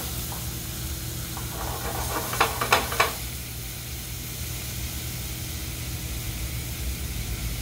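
Flounder fillets sizzling steadily in olive oil in a frying pan. A few sharp scrapes and knocks against the pan come about two to three seconds in.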